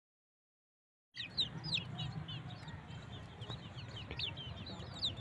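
Young village chickens peeping, many short high falling chirps from several birds at once over a low background rumble, starting about a second in.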